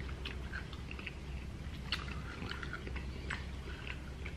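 Close-miked chewing and mouth sounds from people eating, with small scattered clicks and smacks. A low steady hum runs underneath.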